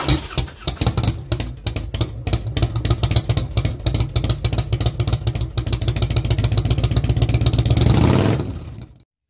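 A loud, rough engine sound, like a motorcycle running and revving, made of rapid, even pulses over a deep rumble. It fades out about eight seconds in.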